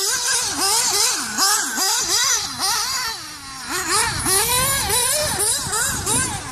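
Mugen MBX6 off-road RC buggy's engine revving up and down in quick repeated bursts, with a longer drop in pitch about three seconds in before it winds up again.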